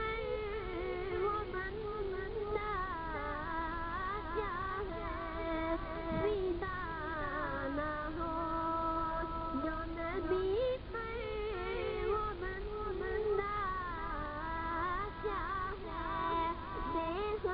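A boy singing a devotional song into a microphone, his voice bending and ornamenting each line, over a steady sustained drone.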